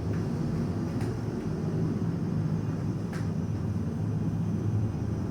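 Steady low rumble of background room noise, with a few faint sharp clicks: one at the start, one about a second in, and one about three seconds in.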